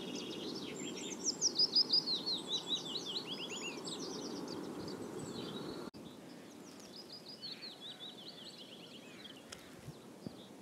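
Willow warbler singing its descending cadence of short sweet notes. The first phrase, loud and clear, is recorded on a smartphone through a plantpot parabolic reflector. After an abrupt cut about six seconds in, a second phrase comes much fainter, recorded on the iPhone alone without the reflector. Steady low background noise runs under both.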